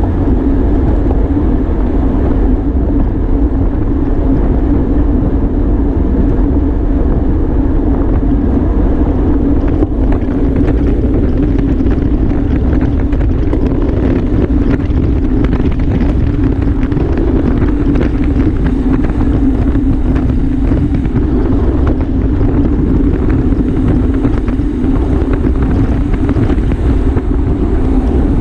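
Wind rushing over the camera microphone of a bicycle at racing speed: a steady, loud rush with a low hum beneath it.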